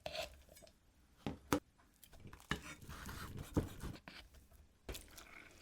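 Scattered light taps, clicks and rustles of handling food and utensils while preparing a dish, about five distinct taps spread through a few seconds.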